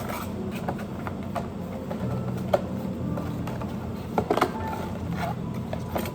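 Steady low hum with scattered sharp clicks and clinks, a cluster of louder ones about four seconds in.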